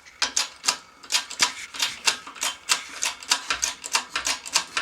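Rapid, uneven series of sharp metallic clicks, about five a second, from tools at work on a control-arm bushing job.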